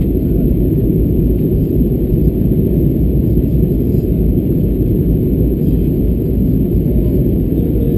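Steady low rumble of an Airbus A320-214 in flight, heard from inside the passenger cabin: engine and airflow noise, even in level with no distinct events.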